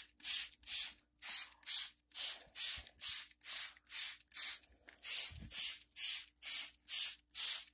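Plastic trigger spray bottle misting water onto houseplant leaves: quick hissing squirts, about two a second, with a brief pause about halfway through.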